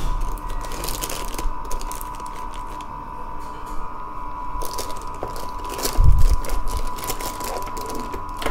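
Plastic bag crinkling as a dome CCTV camera is handled and worked out of its wrapping, with a loud thump about six seconds in. A steady high-pitched tone runs underneath.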